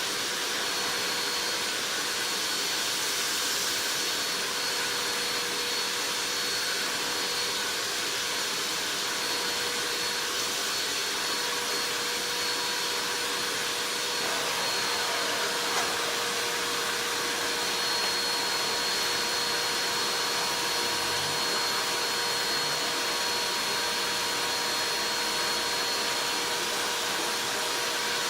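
Amstrad VC3025 bagless cyclonic cylinder vacuum cleaner running steadily: a constant rush of air with a steady motor whine.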